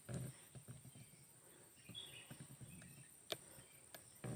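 Quiet rural ambience with a steady high insect drone and faint rustling. A short bird chirp comes about halfway through, and a single sharp click a little after three seconds.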